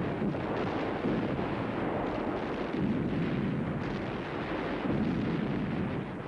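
Steady rumble of battle, artillery fire and explosions blending into one continuous roll with no single distinct blast.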